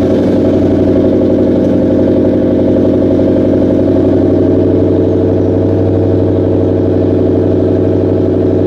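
2004 Ford Mustang SVT Cobra's supercharged 4.6-litre V8 idling steadily through its aftermarket exhaust, just after being started.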